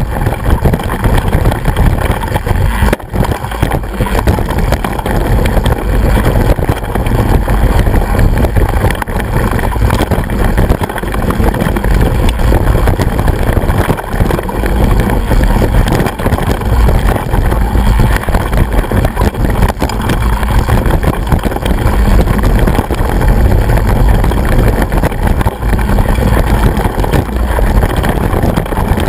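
Wind buffeting and rattle on an action camera mounted on a mountain bike riding a rough hill trail: a loud, unbroken rumble with a sharp knock about three seconds in.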